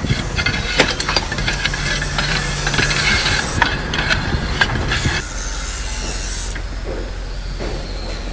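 Clay roof tiles clicking, clattering and scraping against one another as they are laid, over a hiss. About five seconds in the clatter stops and a steady low hum takes over.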